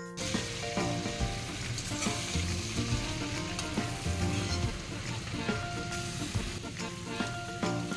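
Spice-coated prawns sizzling steadily as they fry in hot oil in a steel pan, with a spoon stirring and lifting them.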